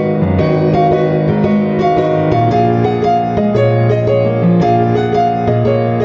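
Background piano music, a steady run of gentle notes.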